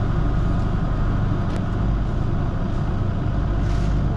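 Steady low drone of a fishing boat's onboard machinery running, with one faint click about one and a half seconds in.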